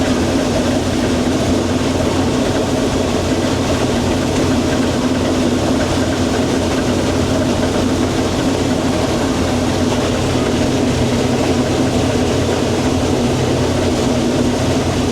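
Combine harvester running steadily while harvesting corn: a steady low engine and machinery sound that does not change in pitch or level.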